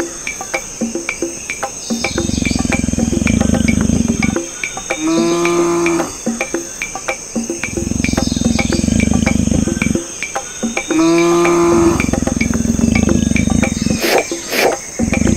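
Cartoon nature ambience of crickets chirping, with a steady high trill and regular ticking. Twice, a low noise of about two seconds is followed by a short cow moo, and the low noise comes again near the end.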